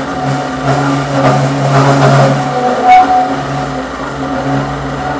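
Motor-driven metal-cutting circular saw cutting through steel plate: a steady motor hum under the rasp of the blade in the steel, which swells in the middle, with a sharp click about three seconds in.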